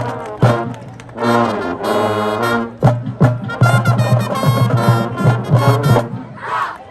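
High school marching band playing: brass chords over a steady beat of low drum hits, the music stopping about six seconds in.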